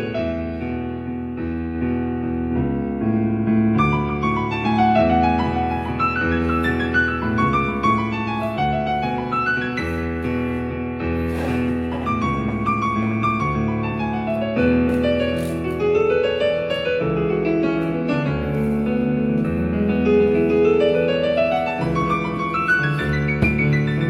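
Piano music played back through a Bose SoundLink Revolve Bluetooth speaker, with flowing runs of notes sweeping up and down the keyboard.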